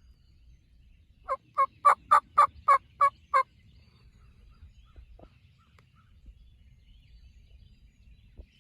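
A quick run of eight loud turkey yelps, about four a second, each note clipped and evenly spaced.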